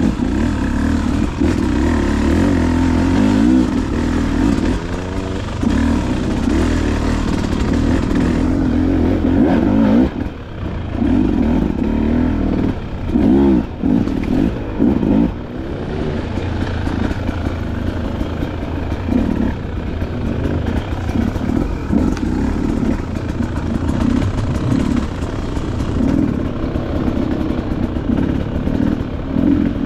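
Dirt bike engine running under varying throttle while riding, its pitch rising and falling, with a few quick throttle drops and blips about ten to sixteen seconds in.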